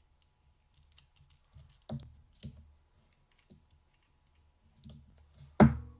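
Padlock and tools being handled: scattered light clicks, two knocks about two seconds in, and a sharp, loud knock near the end.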